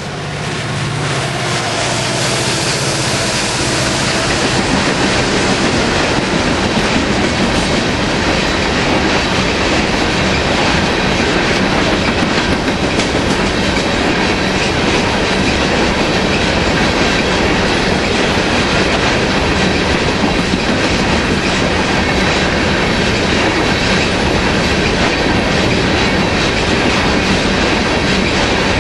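Freight train of coal cars rolling past at speed: a steady, loud rumble and clatter of steel wheels on rail. The sound fades up over the first few seconds, then holds level.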